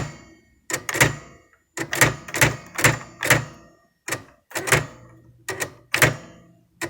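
Nakajima WPT-150 electronic typewriter printing characters as keys are pressed one at a time: about a dozen sharp, clacking print strikes at an uneven typing pace.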